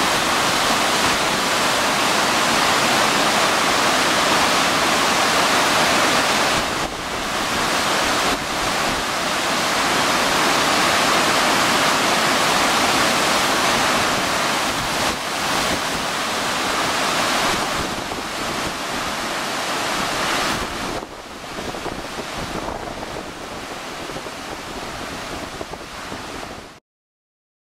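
Turbulent floodwater rushing through a swollen river, a steady loud wash of water noise. It drops in level about 21 seconds in and cuts off abruptly near the end.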